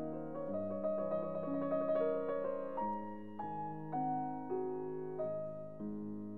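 Background piano music: single notes and chords struck and left to fade, changing about every half second, with a quicker run of notes in the first half.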